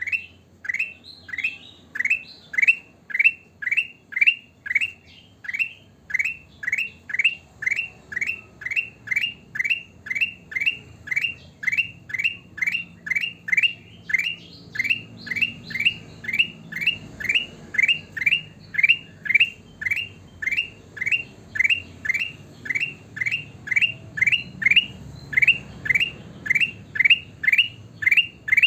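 Kutilang emas bulbul calling in full voice: one short sweeping note repeated very evenly, about twice a second, without a break.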